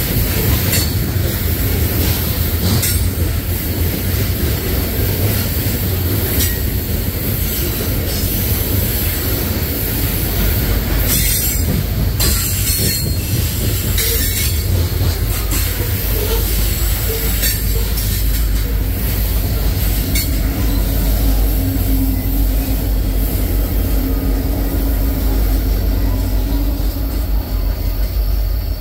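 Loaded coal train's hopper cars rolling past, with wheel squeal and scattered sharp clicks from the wheels and rail joints. A low diesel rumble builds in the second half as a locomotive at the rear of the train draws close.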